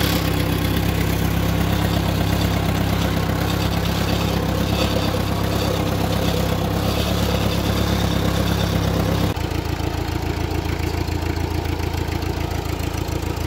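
Farm tractor engine running steadily under load while pulling a box blade. About nine seconds in, the sound changes abruptly to a quieter, lower engine running.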